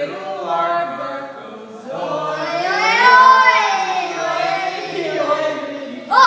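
Sung vocals without clear words, with a long note that slides up and falls back in the middle.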